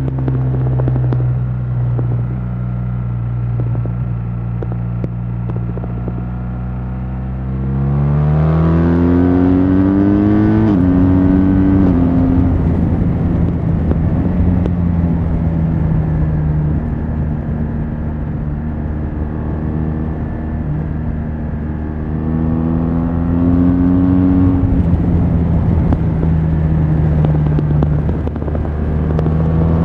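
BMW R1200 GS LC's flat-twin boxer engine running through its stock exhaust: a steady low engine note, then the revs climb about eight seconds in and fall back sharply, hold steady at a higher pitch, and climb and fall again twice more toward the end.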